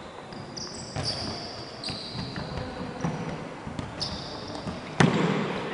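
Futsal being played on a wooden gym floor: sneakers squeaking in short high squeals and the ball knocking as it is kicked and bounces, in a reverberant hall. About five seconds in comes one loud, sharp ball strike.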